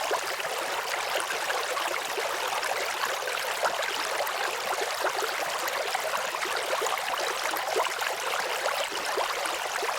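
Steady rushing, water-like noise, like a running stream, dotted with fine crackles and ticks.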